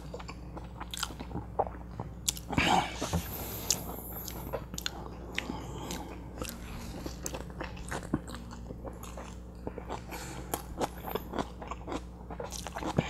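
A man chewing and biting into a butter chicken burrito close to a clip-on microphone: wet mouth clicks and soft crunches throughout, with a louder burst of noise about two and a half seconds in.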